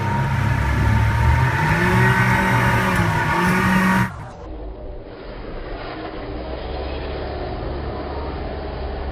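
A motor vehicle's engine revving up and down, loud, for about four seconds, then an abrupt change to a steady, quieter low engine rumble.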